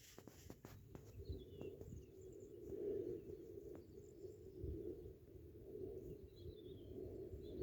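Faint bird chirps over a low, wavering background hum, with a few soft clicks in the first second.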